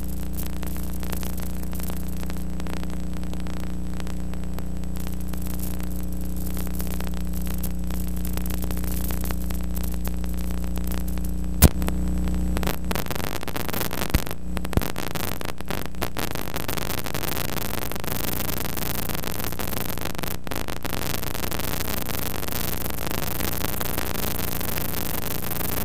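Steady electrical mains hum with hiss, the noise floor of an old film-to-video transfer with no live sound. A sharp click comes about twelve seconds in; after it the hum fades, leaving mostly hiss with a few small pops.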